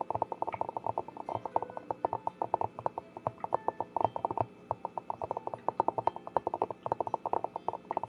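Rapid tapping on a small handheld container held close to the microphone, in quick uneven flurries of many taps a second.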